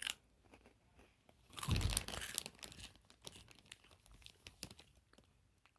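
Close crinkling and rustling, loudest for about a second starting near two seconds in, then trailing off into scattered clicks and crackles.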